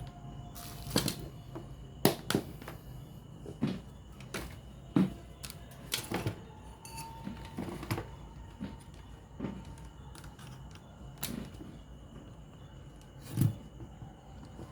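Irregular clicks and knocks from a radio cassette player and tools being handled during repair, with a few louder thuds, the loudest near the end. Under them runs a faint steady hum.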